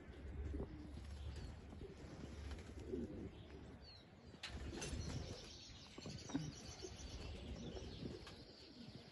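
Racing pigeons cooing around the loft, with flaps of wings now and then.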